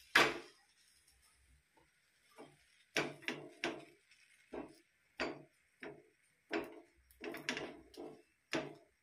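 Flat metal spatula knocking and pressing on a flatbread cooking on a griddle (tawa): a louder clatter at the start as the bread is flipped, then a string of short, irregular knocks, about one or two a second.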